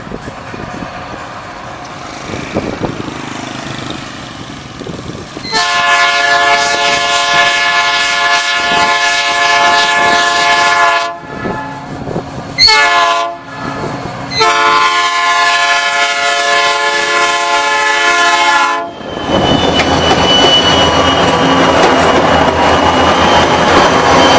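EMD SD40-2 diesel locomotives of a long freight train approaching a level crossing, first as a low rumble, then sounding the air horn: a long blast, a short blast and another long blast. The lead locomotives then pass close by, with engines running and wheels loud on the rails.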